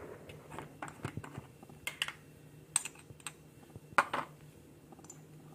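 Light, irregular clicks and taps of a small metal spoon against a glass spice jar as ground black pepper is scooped, with one sharper click about four seconds in.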